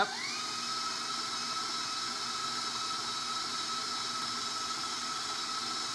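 Electric stand mixer's motor whirring up to speed with a rising whine, then running at a steady pitch as it whips softened cream cheese in a steel bowl.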